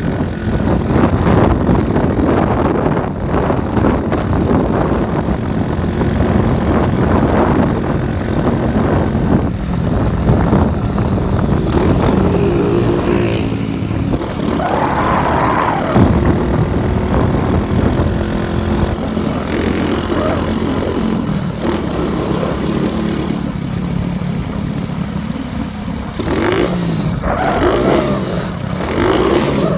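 Motorcycle with a loud exhaust being ridden, its engine note rising and falling with the throttle, with wind blowing on the microphone.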